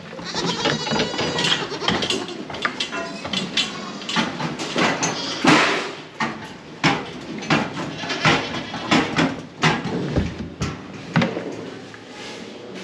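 A barn full of goats bleating, many calls overlapping one after another, with scattered knocks and clatter among them.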